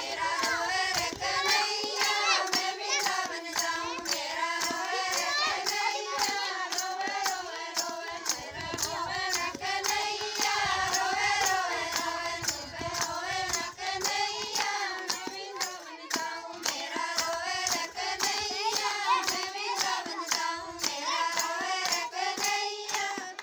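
Group of women singing a Krishna bhajan together, their hand-clapping keeping a steady beat throughout.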